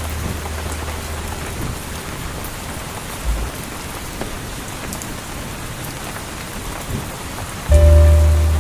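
Steady rain pattering against a window. A low musical note fades away in the first second or two, and a new low chord comes in loudly near the end.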